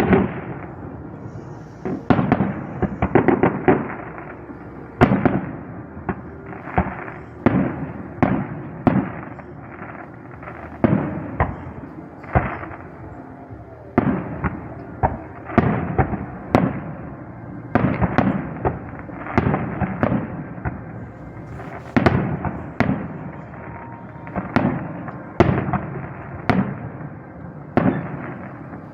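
Fireworks display: a steady run of aerial shell bursts, about one or two bangs a second, some in quick clusters, each bang trailing off briefly.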